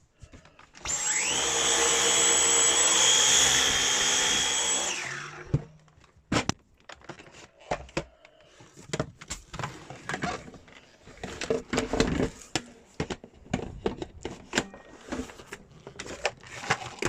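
Dyson Cyclone V10 Animal cordless vacuum's motor running for about four seconds with a steady high whine, then winding down as it is switched off. After it, plastic clicks and knocks as the vacuum's parts are handled and detached.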